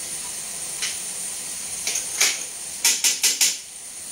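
Metal spatula scraping and tapping against a metal pan of frying curry over a steady sizzle, with four quick sharp taps about three seconds in.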